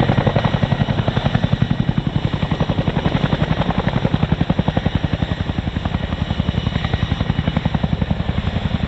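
RAF Boeing Chinook tandem-rotor helicopter flying its display, the rotors making a loud, rapid, even blade slap that eases slightly near the end.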